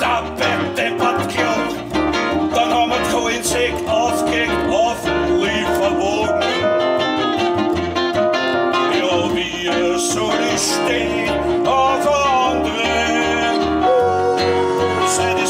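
Live band playing an Austropop song: a man singing into a microphone over upright double bass and keyboard.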